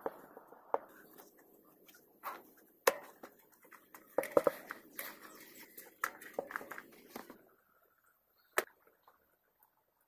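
A string of irregular sharp clicks and knocks, loudest about three seconds in and in a quick cluster about four and a half seconds in, over a low steady hiss that stops about seven and a half seconds in, with one more knock after it.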